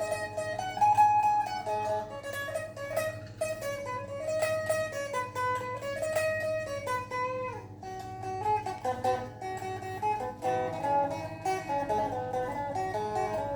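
Isan phin, a plucked Thai lute, playing a fast melody of quickly picked notes over a steady drone, with a short break in the run about eight seconds in.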